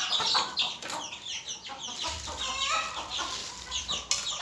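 A brood of chicks and ducklings peeping nonstop, many short falling chirps overlapping one another.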